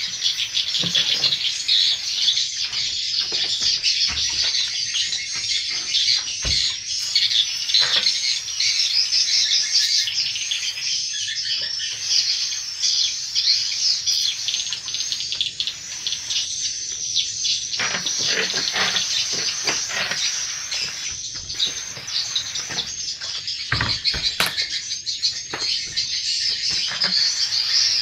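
Swiftlets twittering: a dense, continuous chatter of high chirps, with a few short knocks here and there.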